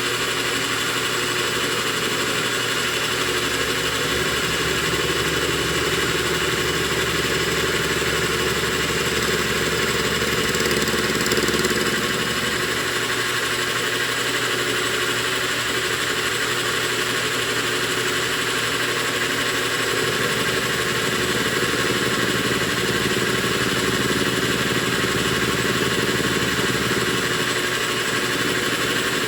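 Metal lathe running through a face-milling cut on a copper bolt, taking about ten thousandths of an inch per pass. Its steady machine hum and whine has a lowest note that shifts a few times.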